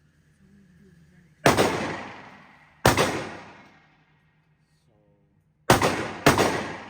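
Four handgun shots, each followed by an echoing tail: two about a second and a half apart, a pause, then two more in quick succession about half a second apart near the end.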